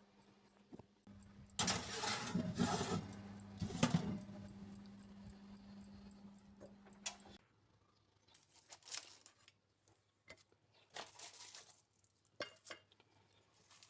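Kitchen cooking sounds: a few seconds of loud clattering and scraping, then scattered light clinks of dishes and utensils. Under it runs a low steady hum that stops about seven seconds in.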